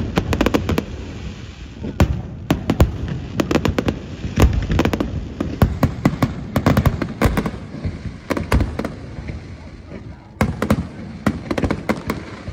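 Aerial fireworks fired from a barge over water, bursting in rapid succession: dense volleys of sharp bangs and crackling, with a brief lull about ten seconds in.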